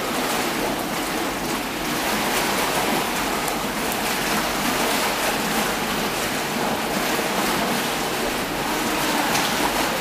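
Pool water lapping and splashing around a swimmer as she strokes through it, a steady watery hiss with no single loud splash.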